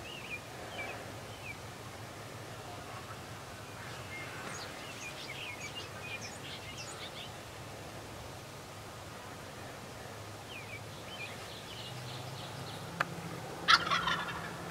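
Birds chirping and singing in short phrases over a quiet rural morning background. Near the end there is a sharp click and then a brief, loud burst of calling, the loudest sound here.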